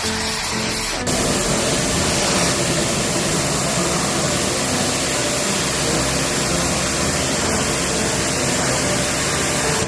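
Pressure washer running and spraying water during air conditioner cleaning: a loud, steady spray hiss over a motor rumble that starts abruptly about a second in.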